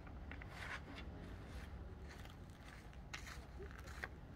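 A few footsteps in slide sandals, scuffing on a sandy dirt path about once a second, over a steady low wind rumble.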